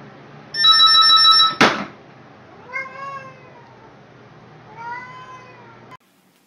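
A landline telephone's electronic ring, cut off about a second and a half in by a sharp clack as the cat knocks the handset off. A cat then gives two drawn-out meows.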